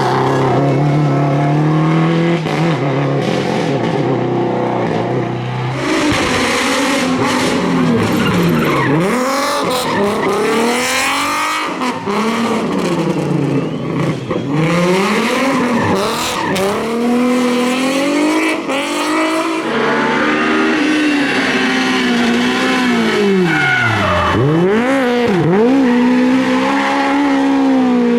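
Rally car engine held fairly steady at first, then revving up and dropping back again and again from about six seconds in, as the car is driven hard and sideways with tyre squeal.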